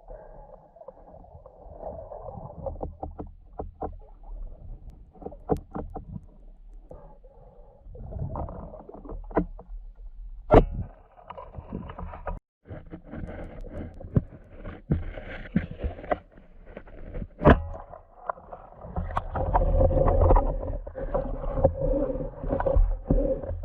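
Muffled underwater sound picked up through an action camera's housing: a low rumble and water noise with many sharp clicks and knocks, two of them standing out clearly, as the camera is moved through the water.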